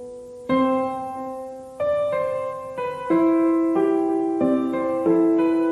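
Background piano music: slow chords, each struck and left to ring and fade, a new one about every second.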